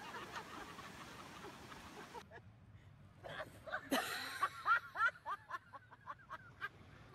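A person laughing hard in a quick run of short, high, squeaky bursts, starting about three seconds in. Before that, a steady rush of wind and surf, cut off suddenly about two seconds in.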